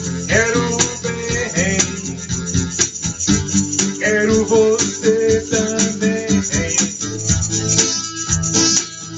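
Live pop-rock playing: acoustic guitar strumming with the jingling shake of a half-moon tambourine (meia lua) and an electronic drum beat, under a wavering melody line with no words.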